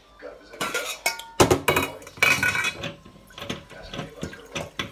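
Metal kitchenware clanking and clinking as it is handled, a burst of clatter with a short metallic ring, then a few lighter clicks.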